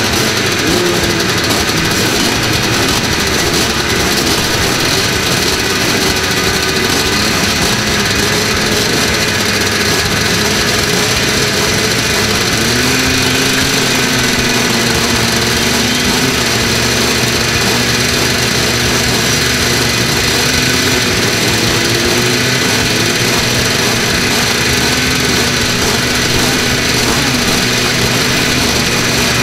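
A line of vintage two-stroke dirt bikes running together at the start line, a loud steady mass of engine noise with a few bikes revving briefly now and then.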